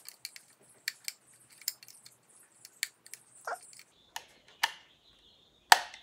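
Irregular small sharp clicks and scrapes of a screwdriver working the screws of a smart light switch's plastic backplate, with one louder click near the end.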